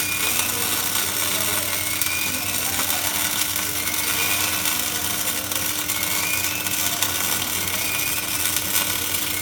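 Electric welding arc crackling steadily, over a low steady hum.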